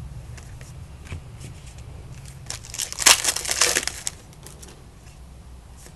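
A 2009 SP Legendary Cuts trading card pack wrapper being torn open and crinkled, with the loudest burst of crackling about three seconds in. Light clicks of card handling come before it.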